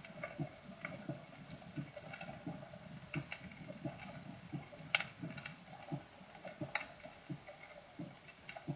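Diastolic gallop rhythm heard through a stethoscope: faint, quick low thuds falling in a triple rhythm, three sounds to each heartbeat, with a few sharp clicks over them.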